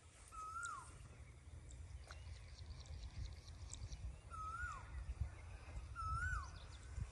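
A bird calling three times, a few seconds apart: a short whistled note that rises slightly and then slides steeply down, over a low, uneven rumble.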